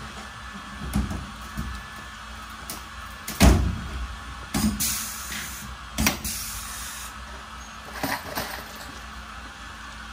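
Scattered knocks and clunks of parts and tools being handled in a workshop, the loudest about three and a half seconds in, over faint background music.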